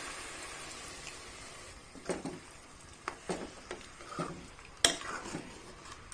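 Water poured onto hot masala and chicken in a pressure cooker, its hiss fading away over the first second or so. Then a metal spatula stirs the chicken and knocks and scrapes against the cooker several times, the loudest knock about five seconds in.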